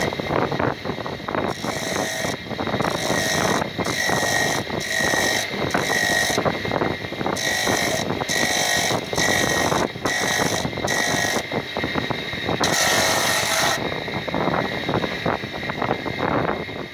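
Block of rock salt pressed again and again against a circular blade spinning on an electric motor's shaft: about a dozen short grinding screeches of half a second or so, and one longer one about thirteen seconds in, over the steady rattle of the running motor.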